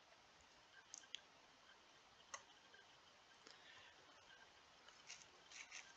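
Near silence broken by scattered faint clicks of a computer mouse: a pair about a second in, a single click a little later, and a quick cluster near the end.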